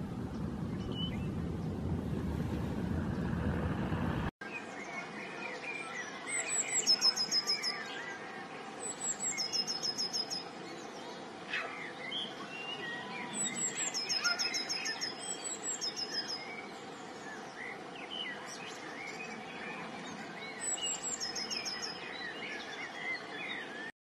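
Songbirds singing: a high, quick phrase of repeated notes comes four times, with softer chirps from other birds in between. Before it, a low rumbling noise runs for about four seconds and cuts off abruptly.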